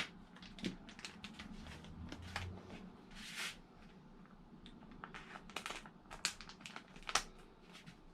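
Scattered light clicks and rustling from parts and tools being handled, with one longer rustle a little past three seconds in.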